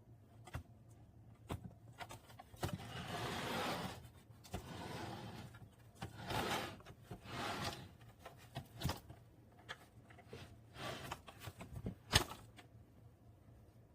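Plastic refrigerator turntable tray being spun and handled: several scraping swishes of about a second each, with scattered clicks and knocks and one sharp knock near the end.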